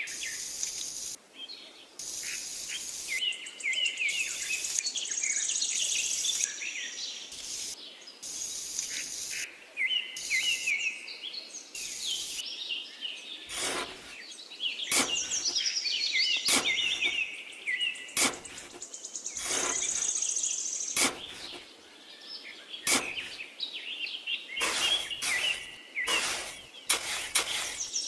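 Birdsong, many quick chirping calls, with a run of sharp clicks and taps in the second half.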